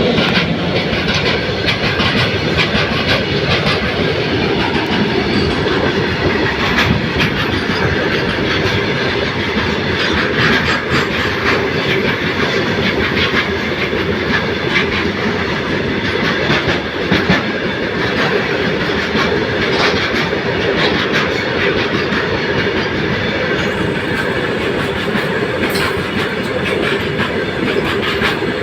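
Indian Railways goods train rolling past, its wagon wheels clattering steadily over the rail joints, with scattered sharp clanks.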